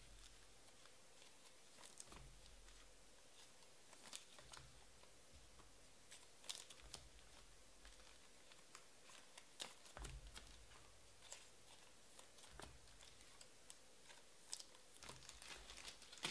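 Faint, scattered rustles and light clicks of trading cards being handled and slid into plastic sleeves.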